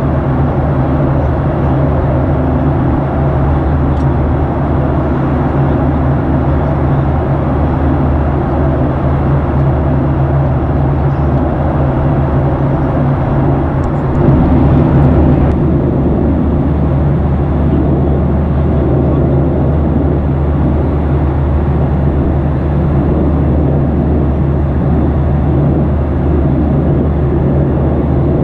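Jet airliner cabin noise at a window seat beside the wing: the steady drone of the jet engines with a constant low hum and the rush of airflow. About halfway through there is a brief louder surge of rushing noise lasting a second or so.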